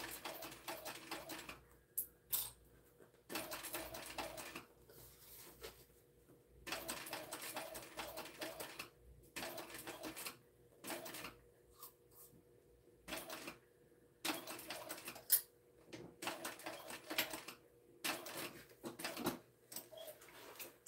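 TechSew 2750 Pro cylinder-arm walking-foot industrial sewing machine stitching in short runs of rapid needle strokes, stopping and starting every second or two, as the top edge of a waterproof canvas tote is topstitched.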